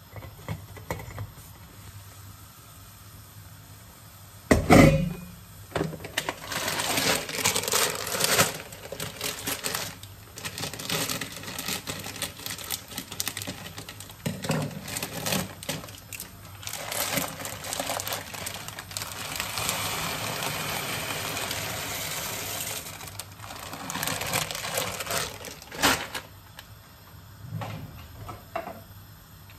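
A metal clank about five seconds in, then long spells of rattling as dry anellini pasta shakes in its plastic bag and pours into a large stainless steel pot of water. There is a sharp knock near the end.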